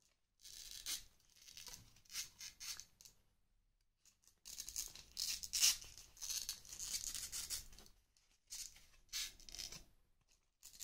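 Rustling, crinkling handling noise from the pieces of a styrofoam toy glider kit being worked and fitted together. It comes in irregular bursts, with a short pause about four seconds in.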